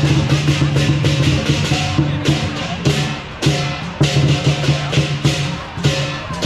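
Lion dance percussion: a drum beating over rapid cymbal clashes, several strikes a second, with a brief break about three seconds in before it resumes.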